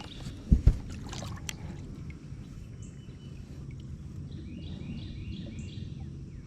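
Two dull knocks, as of something bumping a small boat, about half a second in, then steady low wind-and-water rumble around the boat. A quick run of about five short, falling, high chirps sits in the middle.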